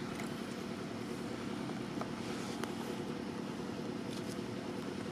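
Steady low engine hum that does not change through the whole stretch, with a few faint clicks on top.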